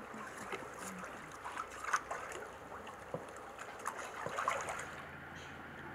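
Water trickling and lapping, with a few small splashes about two seconds and four seconds in; a low steady hum comes in near the end.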